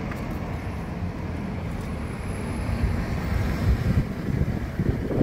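Single-deck bus's diesel engine running as it pulls away and turns: a steady low rumble that grows a little louder and rougher towards the end.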